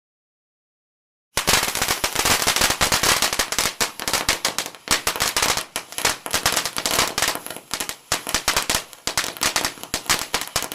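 Fireworks going off as a dense, rapid run of crackling pops like a string of firecrackers. It starts suddenly about a second and a half in and cuts off abruptly at the end.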